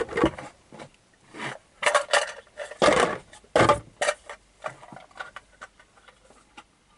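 Small plastic parts of a miniature wheelie bin clicking and knocking as they are handled and fitted together, with the lid being put on. The clicks are irregular, some in quick pairs, and thin out near the end.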